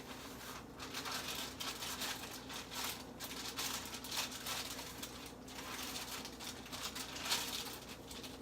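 Faint, irregular rustling and crinkling of a brownie mix packet being handled and emptied into a mixing bowl.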